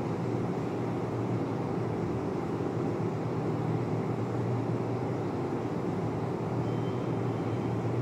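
Steady low background hum with no distinct events, room noise during a silent pause.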